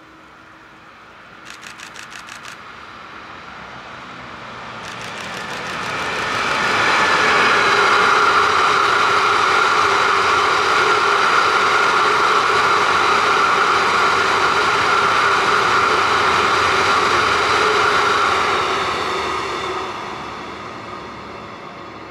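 A freight train approaching, passing close by for about ten seconds, and moving away. Wheels on rail make a loud running noise with a steady high-pitched whine through it. Two short bursts of rapid clicking are heard in the first few seconds as the train draws near.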